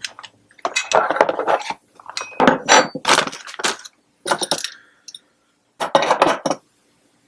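Hard pieces of a solar-panel mounting bracket clinking and rattling together as they are handled, in four short bursts with pauses between.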